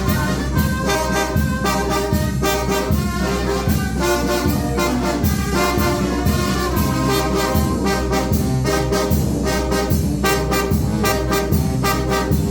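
Mexican banda de viento (wind band) playing a tune, trumpets and trombones carrying the melody over a steady drum beat.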